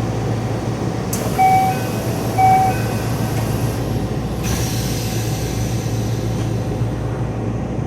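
Yokohama Municipal Subway Blue Line 4000-series door chime: a short two-note chime played twice, about a second apart, just after a click, over the steady hum of the train standing at the platform.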